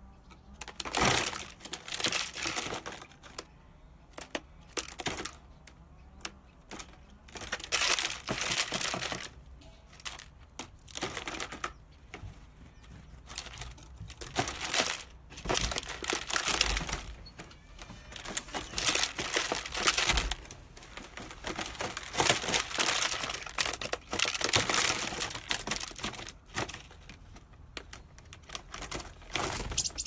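Great tit flapping and scrabbling inside a closed plastic-bottle trap, its wings and feet striking the thin plastic in irregular crinkling bursts with short pauses between.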